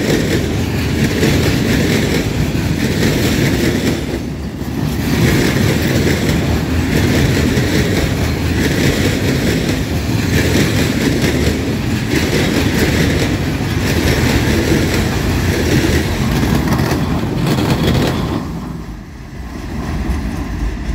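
Freight train of open box wagons rolling past: a steady rumble of wheels on the rails, with a rise in clatter about every two seconds as each wagon's wheelsets go by. The sound drops briefly near the end.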